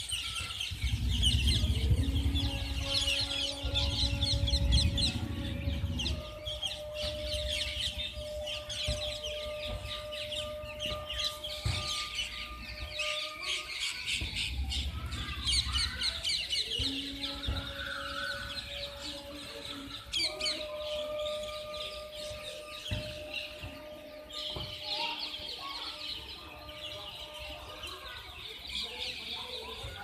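A large flock of parrots calling all at once, a dense continuous chatter of shrill calls. A low rumble lies under it for the first few seconds and again briefly in the middle, and a faint steady hum runs in the background.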